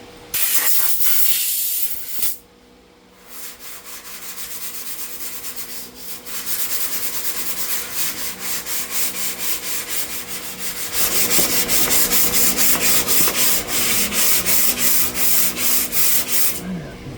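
Sandpaper rubbed back and forth over cured body filler on a car body panel, in rhythmic strokes that grow louder and quicker about eleven seconds in. Before the sanding there is a loud hiss of about two seconds near the start.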